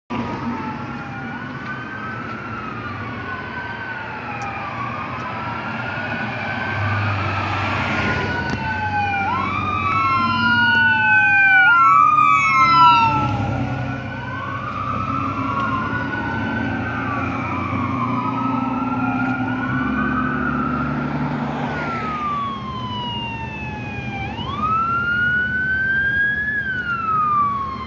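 Emergency vehicle sirens wailing, rising and falling over and over. In the middle a second siren overlaps and a brief rapid yelp joins in, over the heavy engine rumble of the passing 2008 American LaFrance Eagle fire engine. A single wail carries on near the end.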